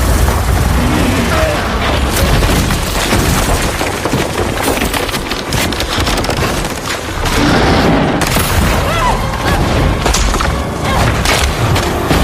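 Film earthquake sound mix: a deep, constant rumble with repeated crashes and cracks of collapsing structures and debris, under a music score.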